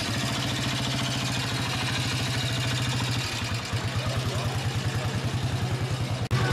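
Vintage motorcycle-and-sidecar engine running at low revs with a rapid, even exhaust beat as the rig pulls away slowly.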